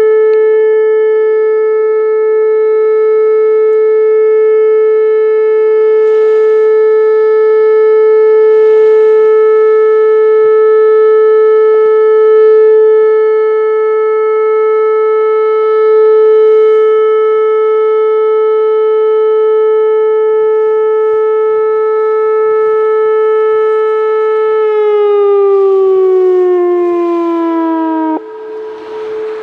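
Whelen WPS 2905 electronic outdoor warning siren sounding a steady 435 Hz alert tone. About 25 seconds in it winds down, the pitch falling for a few seconds before it cuts off suddenly near the end.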